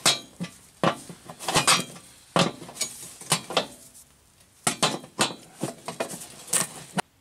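Adjustable wrench turning a nut on a bolt through a metal wood stove, with irregular metallic clinks and clanks of steel on steel, some with a short ring, in small clusters. The sound cuts off abruptly near the end.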